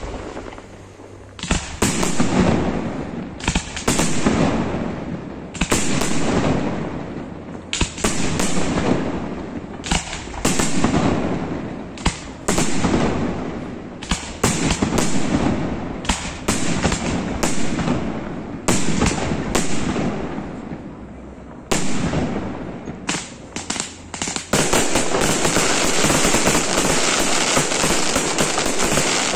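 Maxima Fireworks aerial display: shells bursting one after another, a sharp bang every second or two, each trailing off. Near the end the bursts merge into a dense, continuous crackling barrage.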